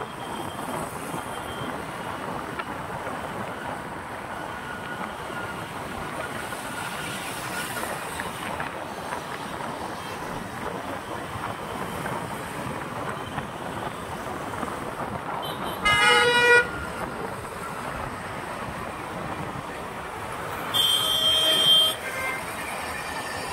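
Steady road traffic noise with two vehicle horn honks: a short one about two-thirds of the way through and a longer one of about a second near the end.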